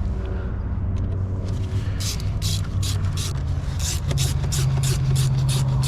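A hand ratchet clicking in an even rhythm, about two to three clicks a second from about two seconds in, as hose clamps on the air intake tubes are tightened. A steady low hum runs underneath.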